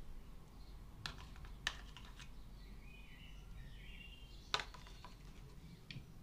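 A metal spoon clicking lightly against a plastic tub and a ceramic plate while vinaigrette is spooned over the dish: a few sharp clicks, the loudest about four and a half seconds in. Faint bird chirps in the background.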